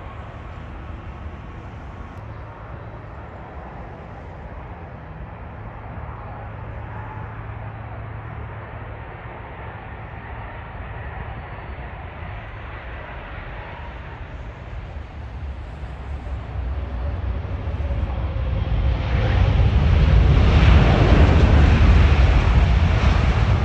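Jet engine noise of a Boeing 777 landing, a low steady rumble at first that builds from about two-thirds of the way in to a loud rushing rumble as the airliner touches down and rolls out.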